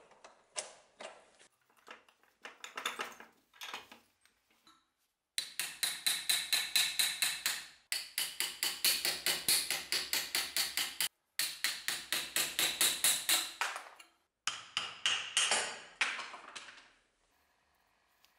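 Rapid hammer blows on metal, about five a second in four runs, each blow ringing, as the old plastic handle is knocked off a meat cleaver clamped in a vise. Before that come a few scattered metal clinks and knocks.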